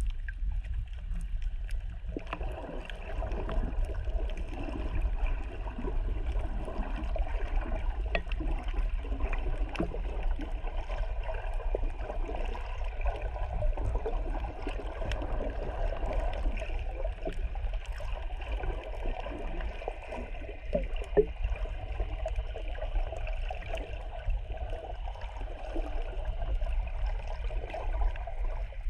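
Muffled underwater water noise picked up through a GoPro's waterproof housing: a steady low rumble, with a shifting wash of water sound that comes in about two seconds in.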